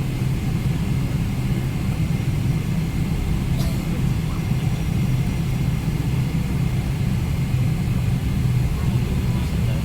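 Steady low cabin rumble of a Boeing 777-300ER with its GE90-115B engines at idle ahead of take-off, with a short click about three and a half seconds in.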